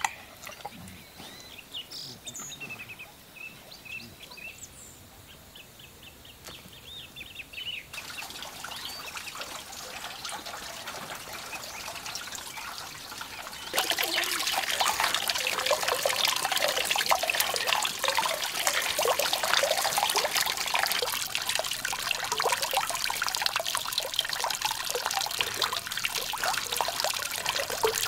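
Birds chirping for the first several seconds; then, about halfway through, loud water splashing and trickling sets in suddenly and carries on, as green onions are swished and rinsed in a metal basin of water.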